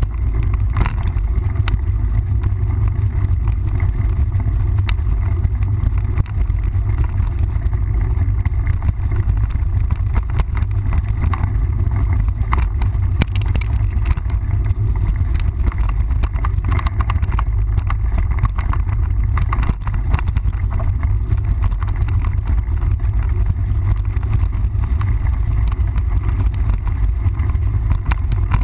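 Wind buffeting a bike-mounted or helmet camera's microphone as a mountain bike rides a trail: a steady low rumble, with scattered clicks and rattles from the bike over rough ground.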